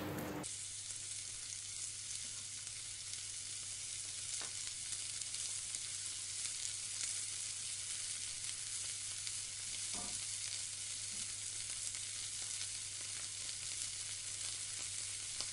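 Sliced onions sizzling steadily as they fry in hot oil in a wok, stirred with a wooden spatula, with a faint knock or two of the spatula against the pan.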